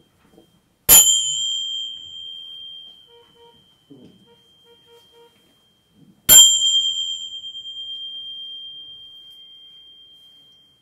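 Tingsha, a pair of small hand cymbals joined by a cord, struck together twice about five seconds apart. Each strike gives a long, high, steady ring that slowly fades, the second one wavering slightly as it dies away.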